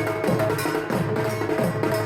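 Dhak drums being played in a fast, continuous Durga Puja rhythm: rapid stick strokes with deep beats that drop in pitch, over a steady ringing tone.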